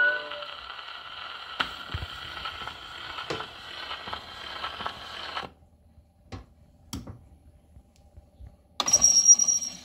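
Acoustic gramophone's needle running on a spinning shellac 78 record with no music left: steady surface hiss with occasional clicks, cutting off suddenly about five and a half seconds in. A few faint knocks follow, then a brief louder scraping rustle near the end.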